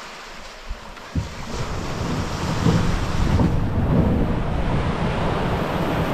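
Sea waves breaking and washing through the shallows, with wind rumbling on the microphone; the surf and wind grow louder after about two seconds. Two short knocks sound in the first second or so.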